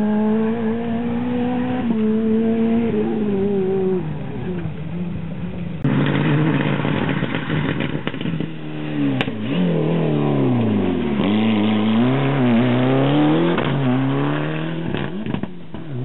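Rally car engines under hard acceleration: the first climbs steadily in pitch, drops sharply at a gear change and then falls away; after a cut about six seconds in, a second car's engine swoops repeatedly down and up as it shifts gears and lifts off through the stage.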